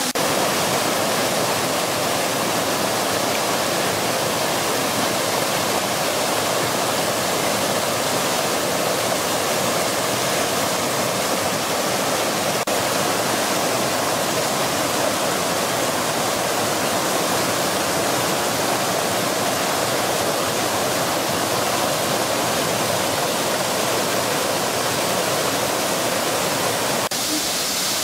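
Garden fountains' water jets and falling spray making a steady, dense rush of splashing water.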